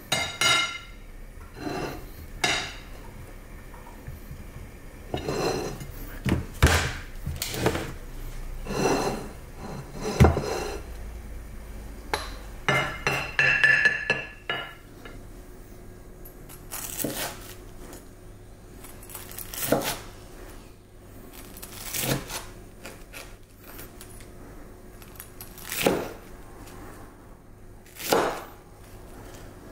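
In the first half, a plastic rice paddle scrapes and taps against a ceramic plate as cooked rice is scooped out and pressed into shape, with a brief clink. In the second half, a kitchen knife slices through a crisp deep-fried panko pork cutlet onto a wooden cutting board: about five sharp crunching cuts, each two to three seconds apart.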